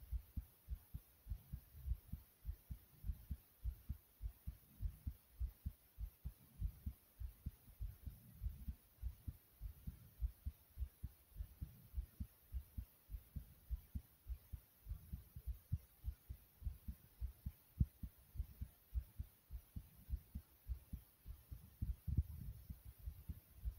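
A person's heartbeat recorded close up: a steady, even rhythm of low thumps.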